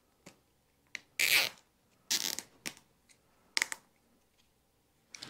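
A plastic zip tie being pulled tight through its ratchet at a bicycle's head tube, in a series of short pulls, the longest and loudest about a second in.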